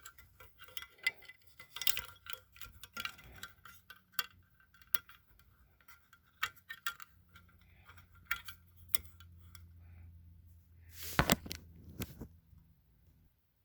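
Metallic clicks and taps from handling a vintage Royalarm burglar and fire alarm and its metal dome cover while working its test strip. A faint, low buzz from the battery-powered alarm swells from about six seconds in and cuts off suddenly about twelve seconds in, with a louder clatter just before it stops.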